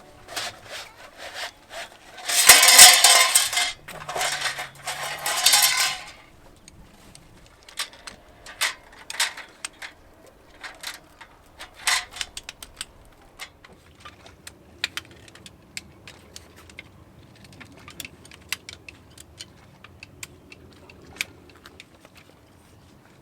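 Scraping and rubbing for a few seconds, then scattered light clicks and knocks as objects are handled.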